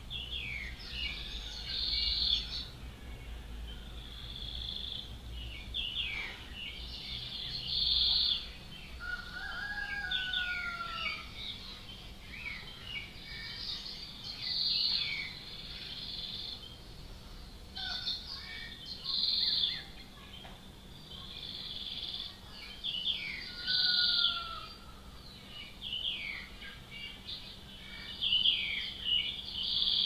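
Nightingale singing: varied phrases every few seconds with short pauses between them, made of quick down-sweeping notes and bright high notes, with an occasional lower slurred whistle.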